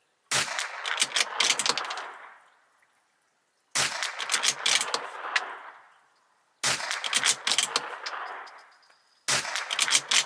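Bolt-action .22LR rimfire rifle firing fouling shots, four in all, roughly three seconds apart. Each shot is followed by a quick run of clicks and clatter as the bolt is cycled for the next round.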